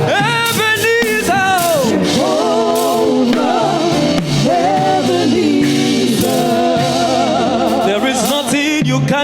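Live gospel worship music: a singer holds and bends long notes with a wavering vibrato, without clear words, over a backing band with cymbals.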